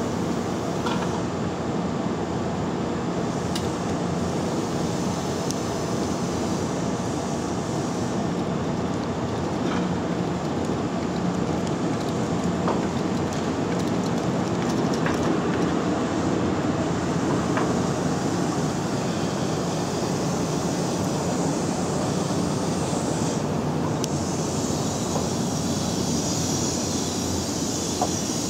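Yoro Railway 620 series electric train moving slowly past at close range: a steady rumble of wheels and running gear that swells slightly as the cars go by, with a few faint clicks.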